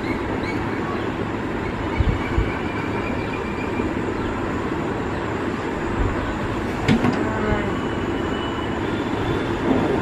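Steady loud rumbling background noise, with a few short low knocks and a sharp click about seven seconds in.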